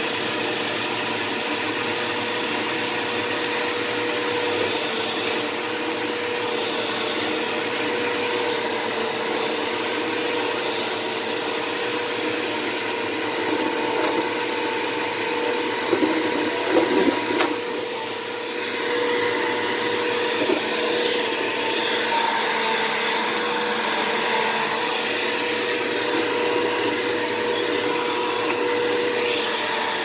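Sanitaire SL4110A commercial upright vacuum cleaner running steadily on a carpet rug, its motor a constant loud hum with a steady whine. A few louder, irregular rattles come about halfway through.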